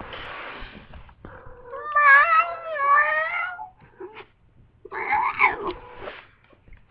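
Domestic cat in heat caterwauling: a long, wavering yowl about two seconds in, then a shorter call about five seconds in.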